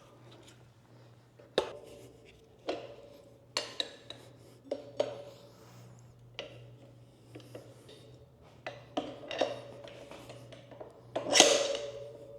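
Irregular metal clanks and clinks as a tire lever and the steel tire changer work the back bead of a motorcycle tire off its spoked rim, about a dozen knocks that ring briefly, the loudest one about eleven seconds in.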